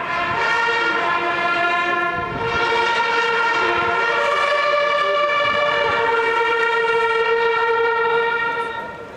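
Many hunting horns blowing long held notes together in several parts. The chord changes a few times before the notes stop near the end.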